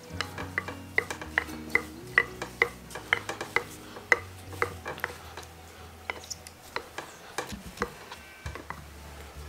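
Wooden rolling pin working bread dough on a wooden board, giving an irregular run of sharp clicks and knocks as it is rolled and shifted against the board.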